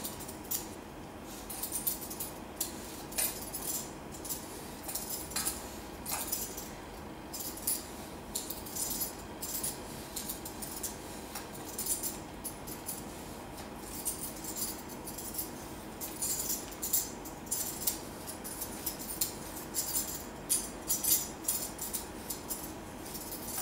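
Hand-held vegetable peeler scraping the skin off a red-skinned potato, a long run of short, irregular scraping strokes.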